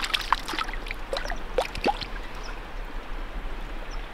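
Lake water splashing and dripping at the shore's edge as a small brown trout is let go from the hand: a few quick splashes and plinking drops in the first two seconds, then only faint lapping of water.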